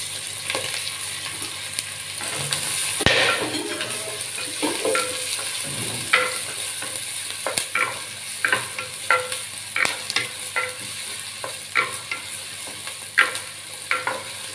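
Chopped shallots and green chillies sizzling in hot sesame oil in an earthen clay pot. From about halfway on, a wooden spatula stirs and scrapes against the pot in strokes about one and a half a second.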